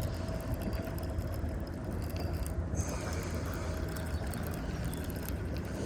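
Fishing reel being cranked steadily to bring in the line, its gears and mechanism clicking and whirring over a low rumble.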